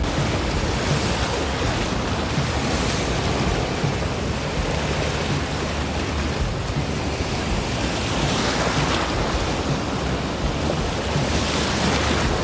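Small waves breaking and washing through shallow surf, steady throughout, with wind rumbling on the microphone.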